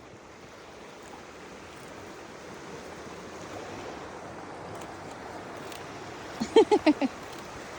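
River water rushing steadily, growing slightly louder. Near the end comes a quick run of about five short, loud, pitched sounds from a voice.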